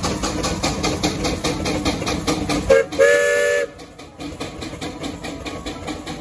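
Steam traction engine working hard under load, its exhaust beating in rapid, even chuffs. Just before three seconds in there is a short toot, then a steam whistle blows for about two-thirds of a second, and the chuffing carries on more quietly afterwards.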